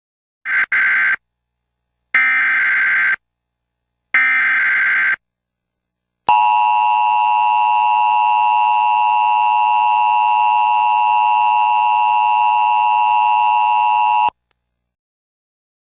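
Emergency Alert System alert tones: three short bursts of buzzing digital data header, about two seconds apart, then the steady two-tone attention signal, a harsh dissonant tone held for about eight seconds before it cuts off. This sequence announces an emergency broadcast, here an Amber child abduction alert.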